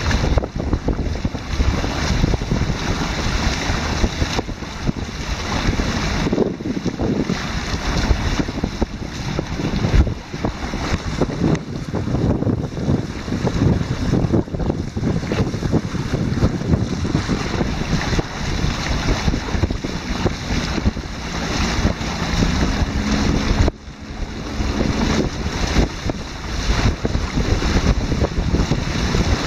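Heavy wind buffeting on the microphone over water rushing and splashing along the hulls of a Hobie Mirage Tandem Island sailing trimaran moving fast under sail. The noise rises and falls unsteadily and dips briefly about three-quarters of the way through.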